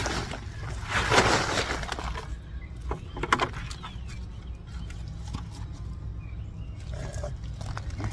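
Rustling and scraping of soil being handled while a potato bucket is emptied, with a couple of louder scuffs about one and three seconds in.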